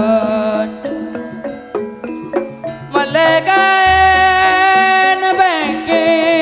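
Live East Javanese kuda kencak folk music: a held, wavering melody breaks off about half a second in, a few sparse struck notes follow, and the melody returns loudly at about three seconds over a deep low boom.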